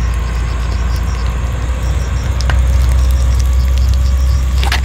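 Salted fish frying in a small pan of hot oil, a fine steady crackling sizzle, under a steady low rumble; a sharp click near the end.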